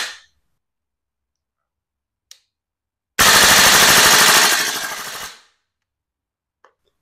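VFC HK416A5 gas blowback airsoft rifle firing one full-auto burst of about two seconds, a rapid, even string of loud reports with the bolt cycling on each shot, trailing off near the end. A faint click comes about two seconds in, before the burst.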